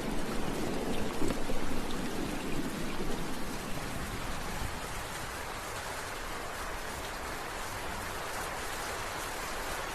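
Steady rain falling, an even hiss of many drops. A rumble of thunder dies away over the first few seconds, leaving the rain alone.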